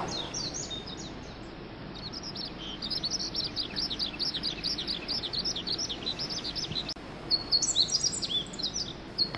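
Small birds chirping: rapid runs of short, high, falling notes, with a different pattern of chirps joining near the end.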